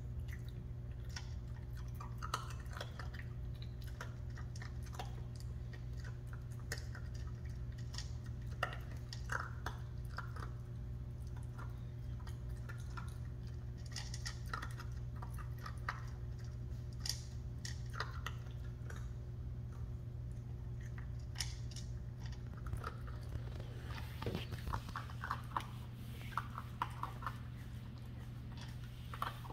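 A puppy crunching dry kibble from a bowl, with scattered sharp crunches and clicks that come more often near the end, over a steady low hum.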